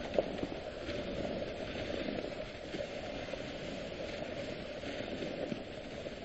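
Dog sled runners sliding over snow with a steady hiss, with a few light clicks and knocks from the moving sled.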